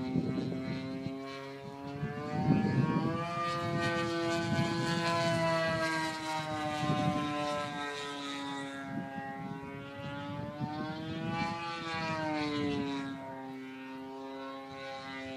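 Large-scale RC Extra aerobatic plane's gasoline engine and propeller running in flight, its pitch rising and falling twice as it manoeuvres. Wind buffets the microphone near the start.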